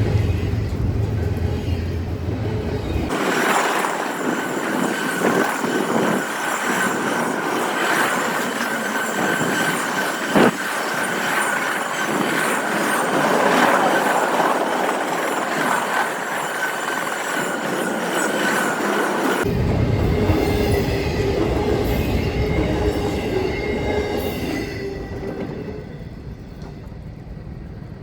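CSX intermodal freight train rolling past, its steel wheels squealing steadily on the rails with some clickety-clack over the joints. A single sharp knock comes about ten seconds in. The deep rumble drops out abruptly a few seconds in and returns past the midpoint, and the sound dies away over the last few seconds.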